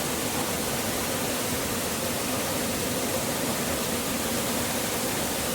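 Waterfall: a steady rush of falling water, unbroken and even.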